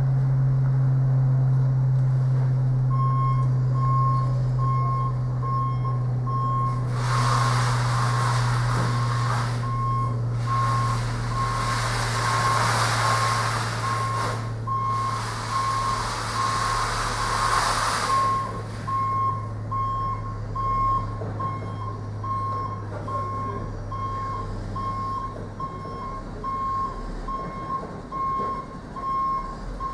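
Articulated lorry reversing: its diesel engine runs low and steady, slowly fading, while its reversing alarm beeps about twice a second from about three seconds in. Midway come three long, loud hisses of a few seconds each.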